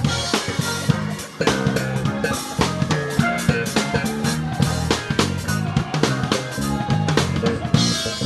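Live gospel band playing loudly: a drum kit with rapid kick, snare and cymbal hits over sustained bass-guitar notes, with a short break in the drums about a second in.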